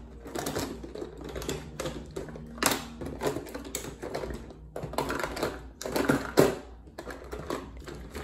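A quick, irregular run of clicks and taps close to the microphone, with a few louder knocks among them, over a low hum.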